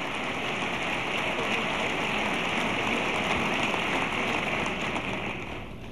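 Large crowd applauding: a dense, steady clapping that dies away near the end.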